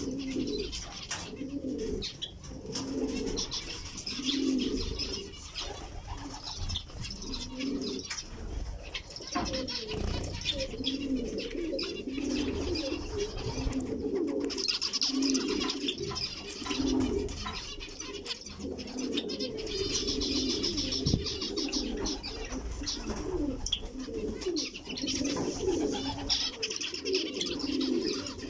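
Birds calling continuously: a steady stream of repeated low calls, with higher chirping over them that is busiest around the middle and again near the end.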